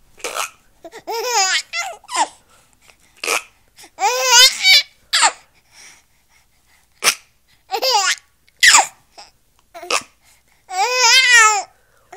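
A baby laughing in repeated high-pitched bursts, several squealing laugh pulses in each, with short sharp noises in between.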